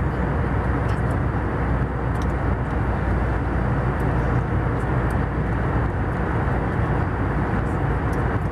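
Steady cabin noise of an Airbus A320 in cruise: a constant deep rush of airflow and jet engines, with no change in level.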